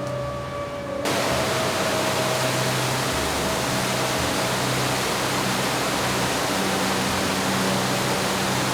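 A loud, steady rushing noise cuts in suddenly about a second in, over background music with long held notes.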